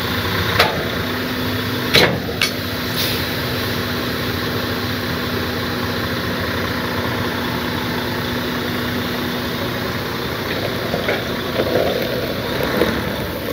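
Heavy wrecker truck's diesel engine idling steadily, with a few sharp clicks in the first three seconds.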